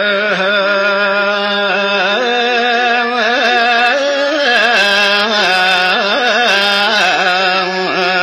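A male cantor singing a long melismatic "eh..." in the slow Ethiopian Orthodox zelesegna chant style, the voice sliding up into the note at the start and then wavering in ornamented turns over a steady held drone.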